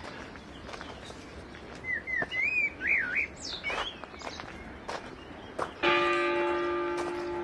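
Footsteps on a gravel path, with a songbird whistling a few quick up-and-down phrases about two to four seconds in. Near the end a church bell is struck once and rings on; it is the loudest sound.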